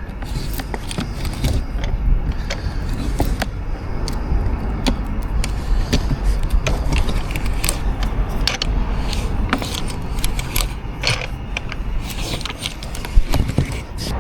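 Hand-wound rotary scraper working around barrier pipe to strip its aluminium foil and outer layer before electrofusion welding: irregular metallic clicks and scrapes over a steady low rumble, with one loud click near the end.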